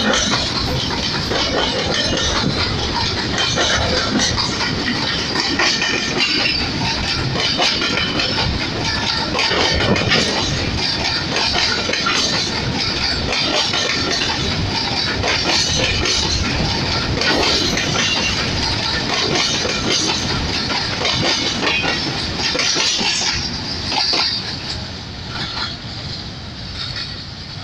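Covered box wagons of a long freight train rolling past close by, their wheels clicking over the rail joints in a steady rumble. It fades near the end as the last wagon passes and moves away.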